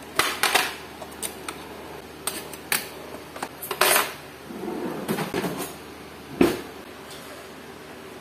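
Metal cutlery clinking as spoons and forks are dropped and sorted by hand into a wooden drawer organizer: a run of sharp, separate clinks, then a softer rattle, then one louder thump about six seconds in.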